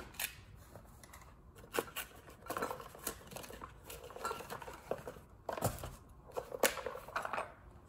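Red plastic case of a Milwaukee bimetal hole saw kit being unlatched and opened by hand: scattered plastic clicks and snaps with the clink of the metal hole saws shifting inside, a few sharper snaps standing out.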